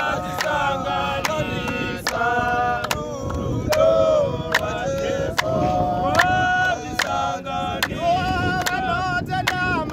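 A group of men singing together a cappella in close harmony, keeping time with regular handclaps about every half second.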